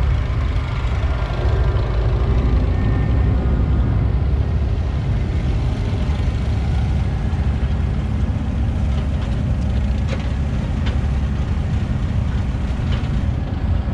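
Heavy farm machinery engines running steadily, a loud low rumble with a few faint clicks late on.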